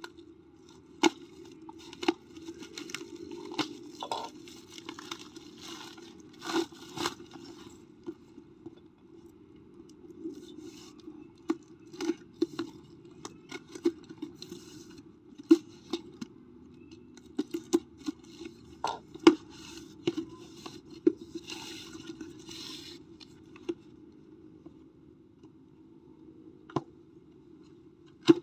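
Packaging being torn open and handled: tearing, scraping and rustling, broken by irregular sharp clicks and knocks, over a steady low hum.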